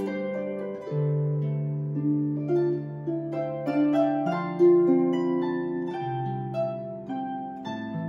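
Celtic harp played solo: melody notes plucked in the upper strings over low bass notes that ring on under them.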